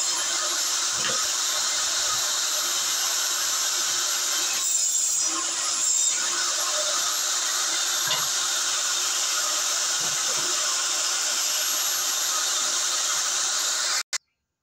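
Table saw running steadily, a constant motor hum under the hiss of the spinning blade, cutting off abruptly near the end.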